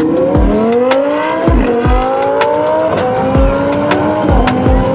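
Lamborghini engine accelerating hard, its pitch climbing and then dropping back several times as it shifts up through the gears, over background music with a steady beat.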